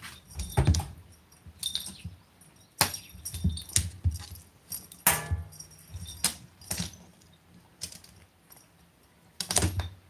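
A cat's collar jingling in short spells as it leaps, paws and pounces, with soft thuds of its paws on the wooden floor.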